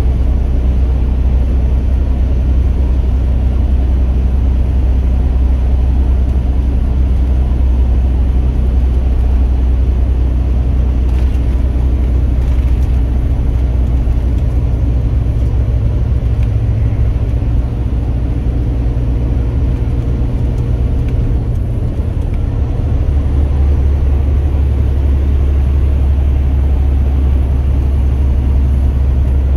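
Steady low drone of a truck's engine and road noise heard from inside the cab while cruising on the highway. The low hum dips and shifts briefly a little past two-thirds of the way through, then carries on.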